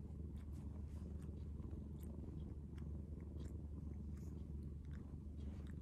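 Domestic cat purring close up, a steady low rumble, with faint soft clicks scattered through it as one cat licks the other's head.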